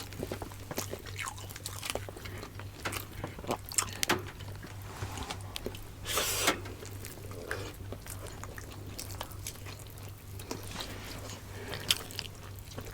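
Close-miked chewing and wet mouth sounds of people eating saucy pork adobo and vegetables with rice: many short smacks and clicks, with a brief louder noisy burst about six seconds in, over a faint steady low hum.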